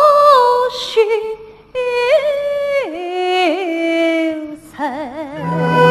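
A woman singing slow, drawn-out held notes with a wide vibrato, in Chinese stage-opera style, the line falling in pitch midway. Low accompanying instruments come in shortly before the end.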